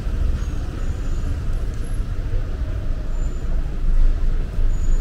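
Steady low rumble of motor vehicles in city traffic.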